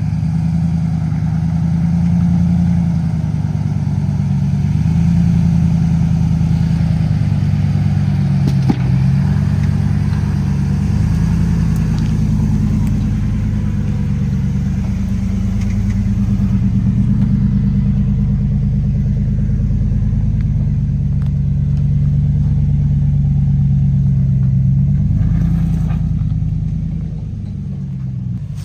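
Off-road truck engine running at low speed with the pitch drifting up and down, as on a slow trail crawl, with a single sharp knock about nine seconds in; the sound eases off near the end.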